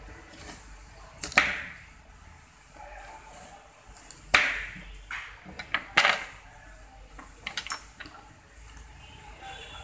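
Kitchen knife cutting through a raw carrot and knocking on a plastic cutting board: a handful of sharp knocks with pauses between, the loudest about four and six seconds in.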